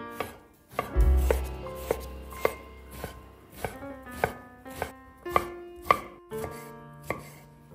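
Chef's knife chopping baked eggplant on a wooden cutting board: a dozen or so knocks, about two a second, with soft background music underneath.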